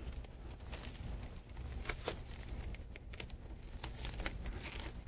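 Faint crinkling and rustling of a plastic light-tight wrap being handled and pressed around a grow block by hand, with scattered small crackles and clicks.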